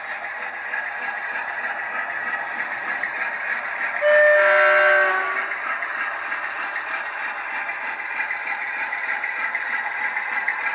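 Model Class 47 diesel locomotive's DCC sound decoder (legomanbiffo sound) playing through its twin speakers: engine sound running steadily as the loco moves, with a loud two-tone horn about four seconds in, a higher note then a lower one, lasting about a second and a half.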